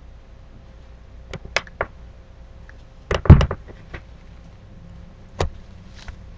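A few light clicks, then a loud clattering knock about three seconds in, and a single sharp click near the end: hard objects being handled or knocked together.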